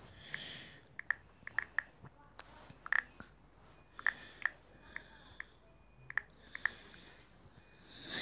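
Typing on a smartphone's touchscreen keyboard: about ten short, crisp key-tap clicks, irregularly spaced, over a faint room hiss.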